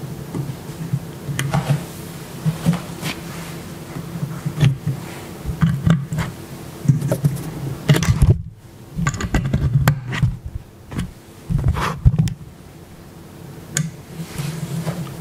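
Crackling, scratchy noise over a steady buzzing hum from an xDuoo TA-01 tube headphone amplifier, played through headphones as its volume potentiometer is turned: the noise of a scratchy volume pot. The crackles come in irregular bursts, drop out briefly about eight seconds in, and thin to a steadier hiss and hum near the end.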